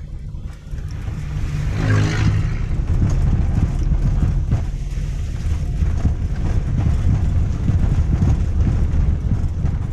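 Cabin rumble of a Daihatsu Xenia driven over a rough, potholed road, with irregular dull knocks from the rear suspension that sound like metal hitting metal, 'dok-dok, dok-dok'. This is typical of worn rubber bushings in the rear stabilizer bar and shock absorber mounts of an ageing Xenia/Avanza.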